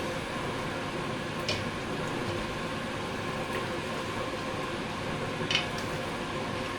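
A spoon stirring chicken stew in a pot, knocking lightly against the pot twice, over a steady kitchen hiss and hum.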